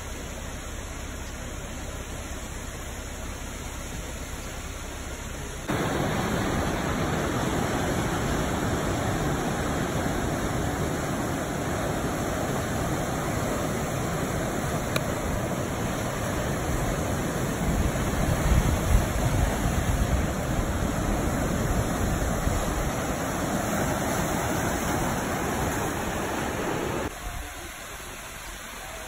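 Rushing water: a small waterfall pouring into a pool, then about six seconds in a sudden cut to louder surf breaking on a rocky lava shore, with the heaviest crashes in the middle. Near the end it cuts to a quieter, more distant waterfall and stream.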